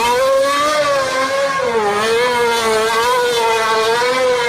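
Racing car engine running at high revs, a high steady note that wavers slightly up and down, like a Formula One car at speed.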